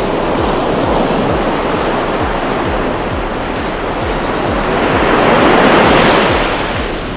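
Ocean surf breaking and washing up the beach, a steady rush of waves that swells to its loudest about five to six seconds in as a wave breaks, then eases.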